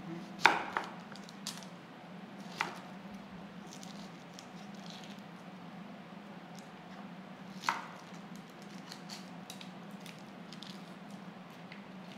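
Kitchen knife cutting an onion on a wooden chopping board: a few sharp knocks of the blade on the board, the loudest about half a second in, another near the middle, and faint crackling of onion skin being pulled off toward the end, over a steady low hum.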